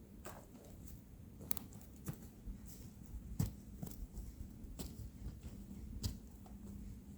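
A series of light, irregular clicks and knocks, roughly one or two a second, with a faint low hum underneath.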